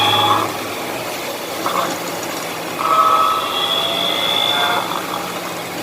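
Genesis car on the move, heard from inside the cabin: road noise with a steady, noisy hum and whine from the rear differential. The mechanic puts the hum down to the differential.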